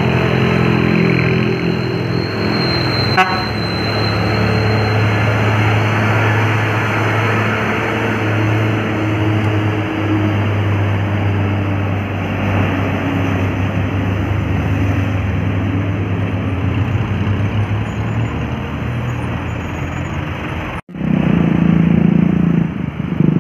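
Heavy road traffic on an uphill grade: a large vehicle's engine drones steadily as it passes close. A single sharp click comes about three seconds in, and the sound drops out briefly near the end before another loud engine takes over.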